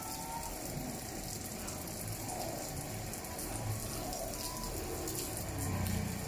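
Water spraying from a garden hose onto a concrete yard floor, a steady hiss and patter.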